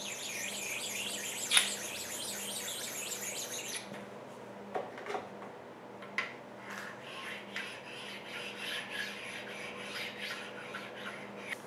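A hand stone rubbed back and forth across the cast-iron work table of an Atlas 7B metal shaper, dressing the table top. It rasps in quick strokes for about the first four seconds, then goes to lighter rubbing with a few small knocks.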